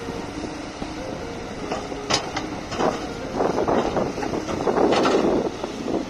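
SANY SY140C crawler excavator running as its bucket digs into the river's edge and lifts clear. In the second half comes a rushing splash of water and wet sand pouring off the bucket, loudest near the end.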